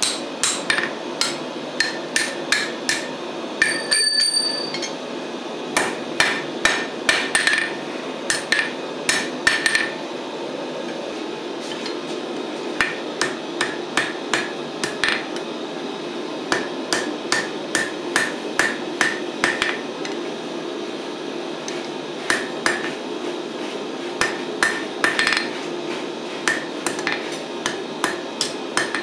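Hand hammer forging hot steel on an anvil: runs of quick blows, about two a second, with short breaks between runs. One or two blows ring out with a clear metallic ring, over a steady low hum.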